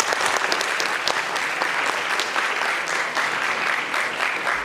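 Audience applauding in a large hall: a dense, steady crowd of clapping hands.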